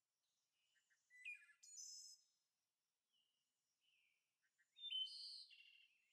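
Faint bird chirps and short trills, with a group about a second in and a louder one around five seconds.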